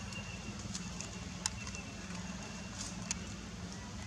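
Outdoor ambience: a steady low hum with scattered sharp clicks and crackles, and a faint thin high tone through the first half.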